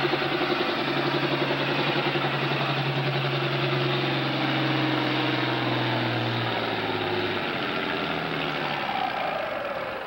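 Farm stock pulling tractor's diesel engine running hard under load as it pulls the weight-transfer sled. It holds a steady note, then drops in pitch about two-thirds of the way through as the engine bogs down under the sled, and fades near the end as the pull finishes.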